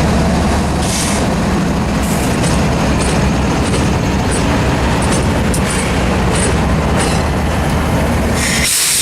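Freight train rolling slowly past at close range: a steady low diesel drone under a noisy rumble, with wheels clicking over rail joints every half second to a second. The sound drops out briefly near the end.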